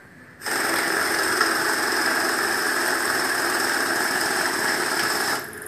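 Xtraon currency counting machine feeding a bundle of 100 banknotes through its rollers: a steady, even machine rush that starts about half a second in and cuts off just before the end as the count finishes.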